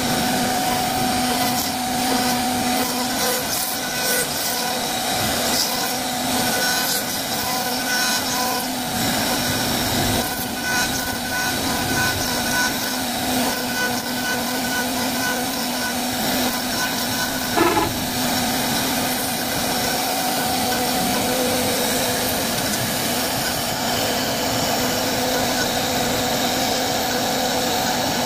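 Wood-carving machine (CNC router) cutting into wood: a steady tone from the spinning spindle over the continuous rasp of the cutter, with one brief louder sound about eighteen seconds in.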